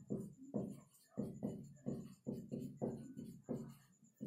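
Faint background music: plucked string notes in a steady rhythm, about three to four a second.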